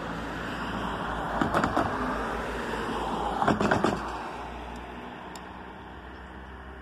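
A car drives over a railroad grade crossing. Its tyres clatter over the rails in two quick clusters of knocks about two seconds apart, and its road noise swells and then fades away.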